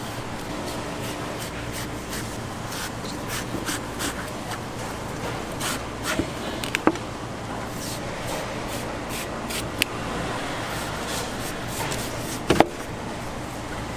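A knife cutting fruit on a cutting board: irregular sharp taps and knocks, two of them louder, about seven and twelve and a half seconds in, over a steady background hum.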